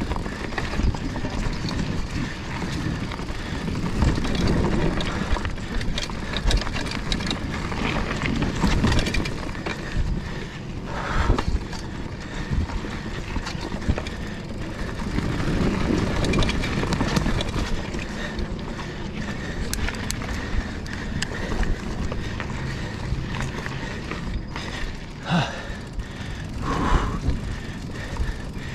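Mountain bike being ridden over loose sand and tree roots: a steady rumble of tyre and rushing-air noise, with the bike clattering and rattling over bumps throughout.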